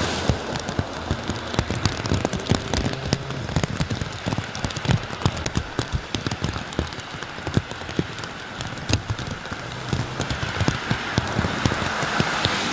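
Steady rain with many close, irregular drops tapping sharply on a nearby surface. A rushing hiss builds near the end.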